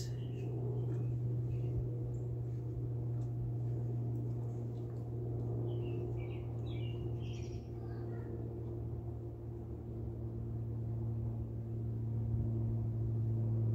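A steady low hum, with a few faint high squeaks about six to eight seconds in.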